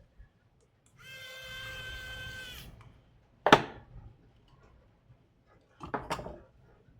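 Handling sounds from a laptop being reassembled. A brief steady whine lasts under two seconds, then comes a single sharp click, and near the end two knocks in quick succession.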